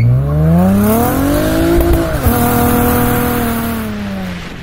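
Honda Accord engine, running on E85, accelerating hard from a standstill. Its pitch climbs steeply, drops sharply at an automatic upshift about two seconds in, then holds and eases slightly before fading out.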